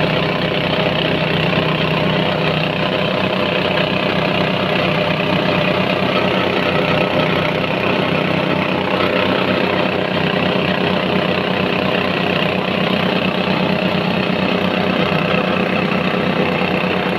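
Rice husk grinding machine running steadily: an even mechanical hum with a fast low pulsing and a hiss over it.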